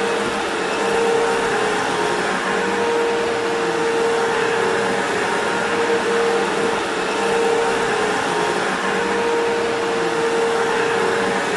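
Loud, steady hiss-like noise with a held low hum underneath, cutting in and out abruptly.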